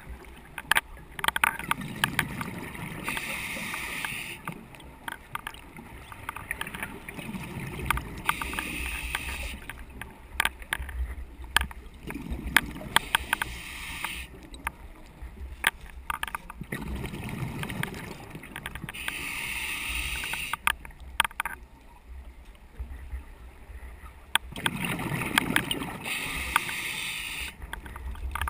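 A scuba diver breathing through a regulator underwater: a hiss with each inhalation and a low bubbling rush with each exhalation, repeating every several seconds. Throughout, a rattle of quick clicks comes from the camera.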